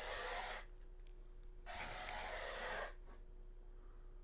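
Two audible breaths close to the microphone, a short one and then a longer one, over a faint steady hum.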